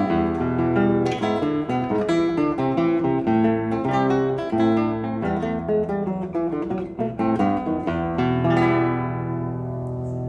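Solo classical guitar playing a fingerpicked choro in E minor, a run of plucked notes and chords. About eight seconds in, a final chord is struck and left to ring out, slowly fading.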